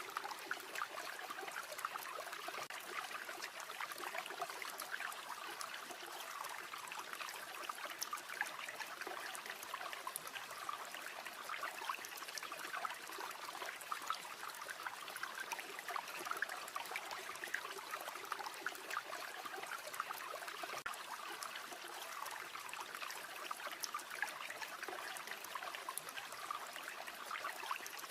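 A river flowing steadily, with faint scattered crackles from a campfire.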